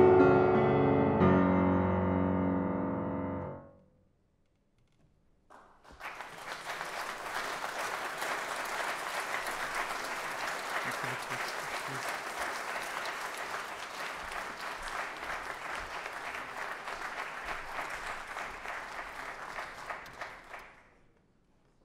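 An aria for voice and grand piano ends, its last chord ringing and fading away. After about two seconds of silence the audience applauds steadily for about a quarter of a minute, and the applause cuts off near the end.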